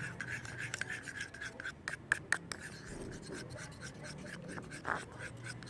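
A spoon stirring a mix of glue, body wash and lotion in a bowl, scraping and clicking irregularly against the bowl.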